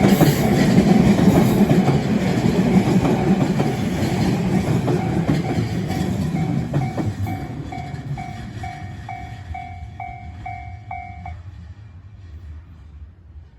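A train passing over a level crossing, loudest in the first few seconds and then fading away as it leaves. The crossing's warning bell rings on through it in a steady repeating chime, about two strokes a second, and stops about eleven seconds in.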